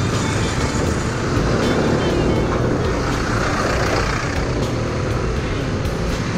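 Riding noise from a Yamaha NMax scooter in traffic: wind and road rush over a low engine rumble, with a swell of noise about three to four seconds in.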